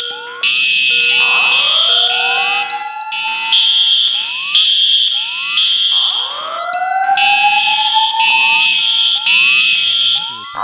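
Several fire alarm sounders going off at once: high-pitched horn tones pulsing on and off, layered with a slow rising whoop roughly every four to five seconds and shorter upward chirps in between.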